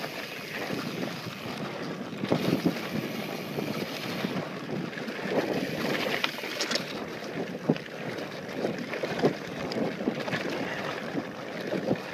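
Mountain bike descending a dirt trail: tyres rolling and crunching over dirt and loose rock, with the bike rattling and knocking over bumps, under wind noise on the microphone. The knocks come thicker about halfway through, over a rocky stretch.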